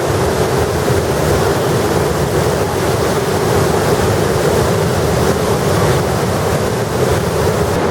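Waterfall rushing from close by, a loud, steady roar of falling water.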